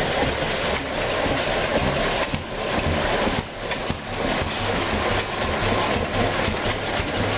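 Large antique stationary gas engine with twin flywheels running steadily, a repeating low chugging under a wash of mechanical noise.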